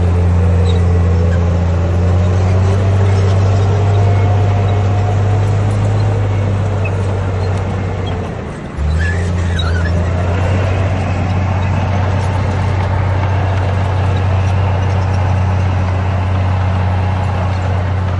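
Bulldozer's diesel engine running steadily under load, a deep drone with a faint whine above it. It drops away briefly about halfway through and comes back abruptly.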